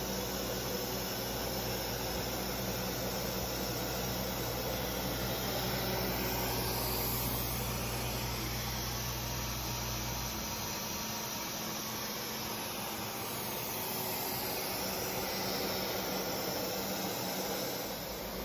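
Steady running noise of a Becker VTLF 250 dry rotary-vane vacuum pump supplying the CNC router's vacuum table, with a low hum under it that stops about ten seconds in.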